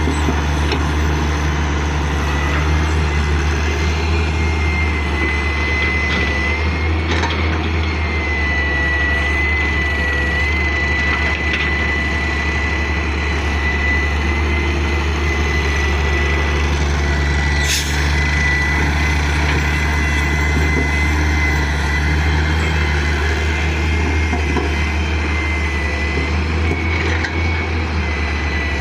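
Hitachi excavator's diesel engine running steadily under load, with a steady high whine over it and a couple of brief knocks, about seven seconds in and again near eighteen seconds.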